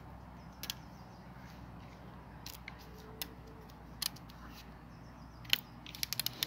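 Hazel fibres crackling as a thin weaver is split and peeled off a hazel pole by hand: scattered short sharp snaps, the loudest about five and a half seconds in, then a quick run of clicks near the end.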